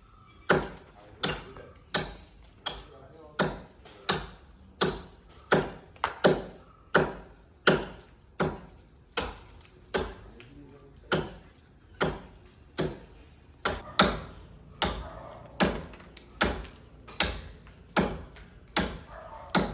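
Axe chopping into a tree trunk by hand: a long run of sharp, evenly spaced blows, about three strokes every two seconds.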